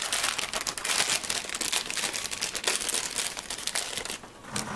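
Plastic candy bag crinkling as it is opened and handled: a dense, rapid crackling that dies down near the end.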